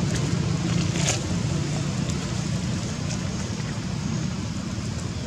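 A steady low rumble with a few faint crackles spread through it.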